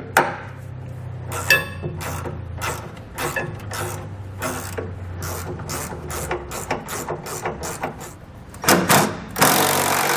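Hand socket ratchet clicking in a long run of short strokes as it turns a 3/8-inch bolt on a frame bracket, then, about nine seconds in, a cordless impact driver starts and runs loud and steady, snugging the hardware down.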